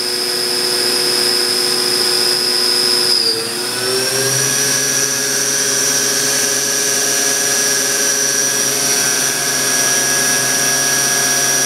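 Sharnoa HPM30 vertical machining center spindle running with a steady high whine. About three seconds in, the pitch dips briefly, then rises and settles higher as the spindle speeds up from 7,000 to its 8,000 rpm maximum.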